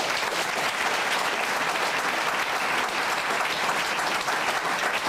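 Audience applauding, a steady even clapping from a seated crowd.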